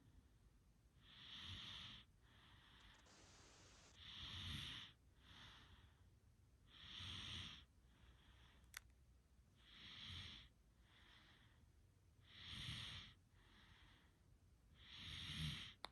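Faint, slow snoring breaths of a sleeper. A louder breath comes about every three seconds, each followed by a softer one.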